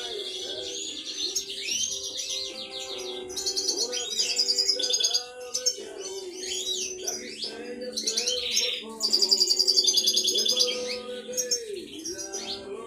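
European goldfinches of the major form singing: rapid twittering and buzzy trills in quick runs, loudest about four seconds and nine seconds in.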